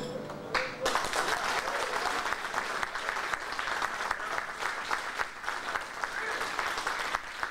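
Audience applauding, breaking out about a second in as the last sung note of a song dies away.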